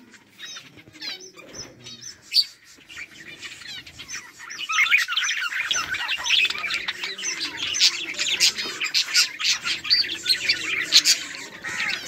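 A flock of budgerigars chirping and warbling: scattered chirps at first, then a dense, louder chatter from about four seconds in.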